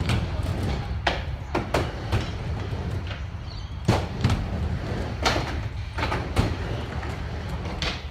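Stunt scooter wheels rolling over skate park concrete with a steady low rumble, broken by irregular sharp clacks as the scooter knocks and lands on the ramps.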